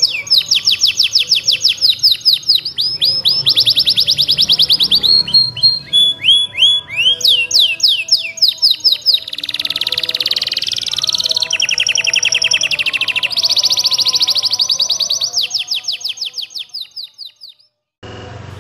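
Domestic canary singing a long song of rapid repeated chirps, switching between several trill patterns, with a denser buzzy passage about halfway through. The song fades and stops shortly before the end.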